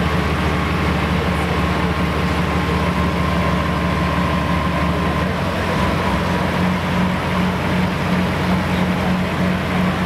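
John Deere super stock pulling tractor's engine running steadily with the tractor stopped at the end of its pull. About five seconds in, the engine note changes and takes on a pulsing beat.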